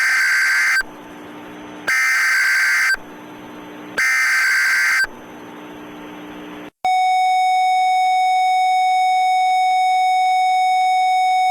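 Emergency Alert System header: three bursts of digital SAME data tones, each about a second long and a second apart, with a low hum between them. About seven seconds in, a steady single-pitched attention tone begins.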